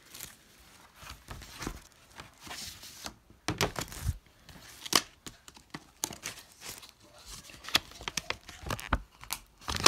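Packaging of a vinyl record being torn open and handled: irregular tearing, crinkling and rustling of wrapping and cardboard sleeve, with a few sharp taps and scrapes, the loudest stretch a little over a third of the way in.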